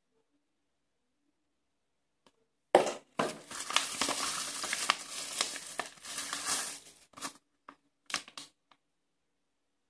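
Clear plastic bag crinkling and rustling as hands handle it, starting with a sharp crackle about three seconds in and running for about four seconds, then a few short rustles of paper being handled.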